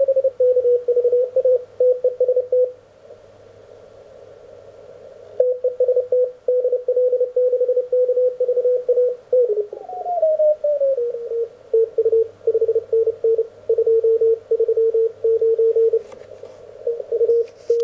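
Elecraft K1 CW transceiver receiving Morse code: a tone near 500 Hz keyed on and off in dots and dashes. About ten seconds in, its pitch slides down as the VFO knob is tuned across onto a signal. From about 3 to 5 seconds the keying pauses and only receiver hiss is heard.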